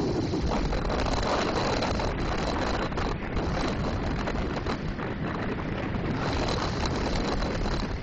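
Steady rush of wind buffeting the microphone on a bicycle speeding down a long, steep downhill grade.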